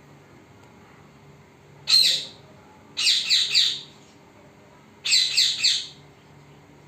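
Pet parrot calling: one short squawk about two seconds in, then two bursts of three or four rapid, harsh high-pitched calls each, the second near the end.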